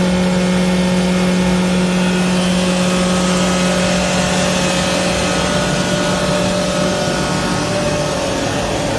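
Electric grinder running steadily while milling Sichuan pepper into powder: a loud motor hum with steady higher whining tones over a dense rushing noise. The main hum weakens a little near the end.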